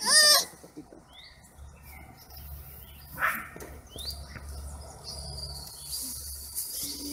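Birds chirping outdoors, with an insect's steady high buzz in the middle, after a short, loud, high wavering call right at the start.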